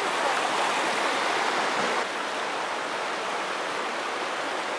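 Rushing water of a rocky mountain stream tumbling over boulders and small cascades: a steady, even rush, slightly softer from about two seconds in.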